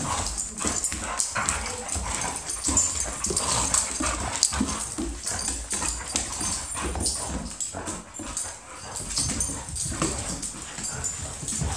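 Two Airedale terriers play-fighting, a busy, irregular mix of short dog yips and whines with scuffling on a wooden floor.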